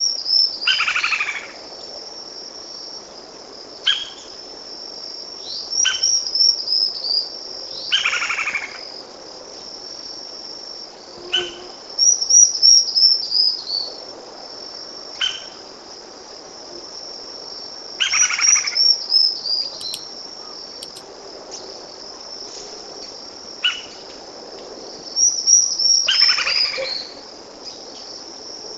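Lineated woodpecker calling repeatedly, with short calls and longer rattling calls every few seconds. A steady high insect trill runs underneath, and every few seconds there is a run of high notes that fall in pitch.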